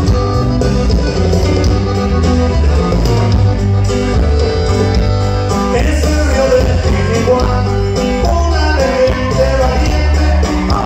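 Live band playing dance music over a loud PA, with a strong bass line and guitars. A voice starts singing about six seconds in.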